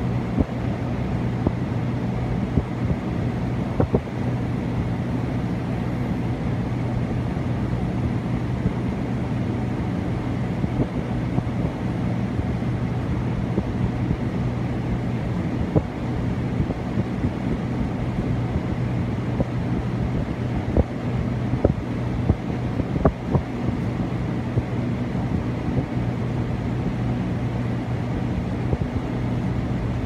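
Saijo Denki air conditioner condenser running steadily: a low, even hum under the rush of air from its plastic-bladed fan, with scattered brief pops.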